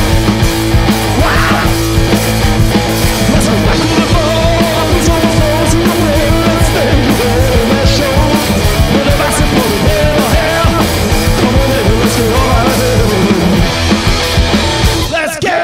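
Loud punk rock band playing an instrumental passage with no singing; the low end briefly drops out near the end.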